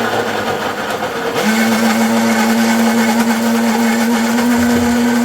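Atomberg BLDC-motor mixer grinder running with its stainless-steel liquidizing jar, blending a juice. The motor starts at once, and about a second and a half in settles into a steady whine.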